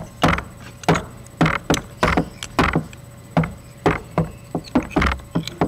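Mineral specimen being scratched in a hardness test: about a dozen short, sharp scrapes at an uneven pace.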